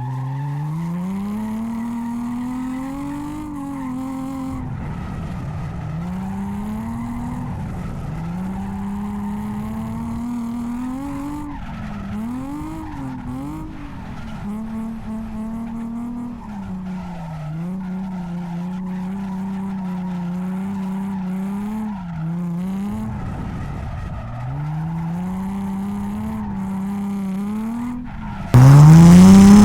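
Nissan 350Z's V6 engine revving up and down over and over as the car drifts, with tyre sliding noise underneath. Near the end the sound jumps suddenly much louder.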